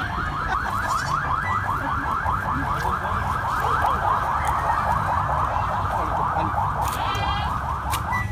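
An electronic alarm sounding a rapid rising chirp over and over, about seven times a second, cutting off at the very end.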